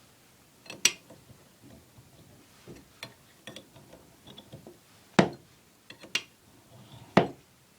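A metal wire being fed down a clogged drain pipe, knocking and clicking against the pipe: four sharp knocks, the loudest near the end, with lighter ticks between them.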